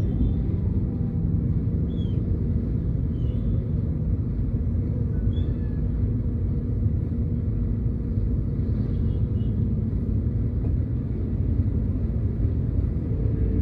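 Steady low rumble of a car, picked up by a dashcam inside the vehicle, with a few faint short high chirps.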